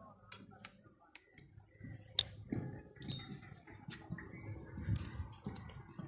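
Cattle eating feed at a trough: scattered crunching clicks, the sharpest about two seconds in, with low irregular knocks through the second half.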